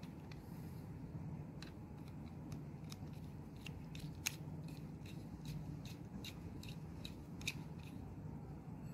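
A small metal tool clicking and scraping against the plastic housing and contact parts of a magnetic contactor being repaired: a series of light, sharp clicks, the sharpest about four seconds in and another near the end, over a steady low hum.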